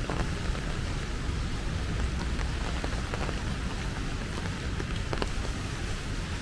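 Steady rain falling, with a few separate drops ticking.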